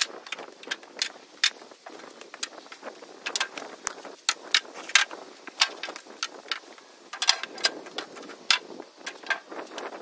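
Freshly sawn white oak boards knocking and clattering against each other and the sawmill frame as they are handled and stacked. The sharp wooden knocks come irregularly, two or three a second.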